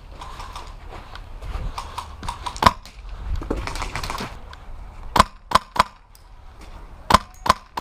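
Airsoft rifle firing single shots, sharp cracks in short groups: one about a third of the way in, then two quick runs of three near the middle and the end.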